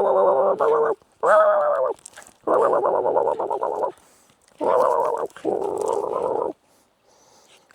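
Medium poodle vocalizing in play: five drawn-out, rough, wavering grumbles, each about a second long with short breaks between them.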